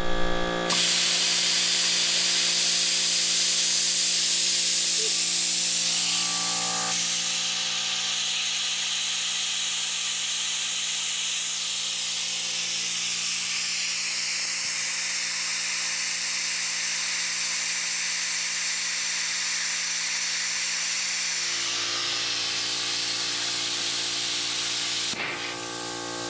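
Stick (arc) welding on steel: the electrode arc crackles and hisses steadily, with a steady hum beneath, and breaks off near the end.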